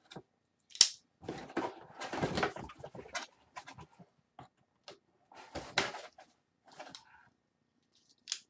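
Cardboard box being folded and creased by hand: irregular rustling and scraping of the card with sharp snaps, the loudest about a second in.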